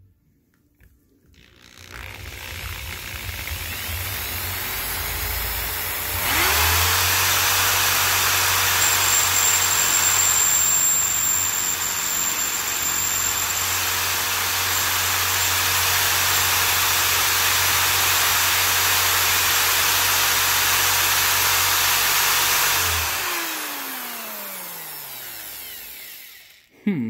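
An electric drill with an oversized bit grinds off the head of a metal rivet holding a wiper-motor gear to its cam. The drill builds up speed over the first few seconds, then runs steadily with a dense grinding hiss for about sixteen seconds. It winds down with a falling whine, and a short knock comes right at the end.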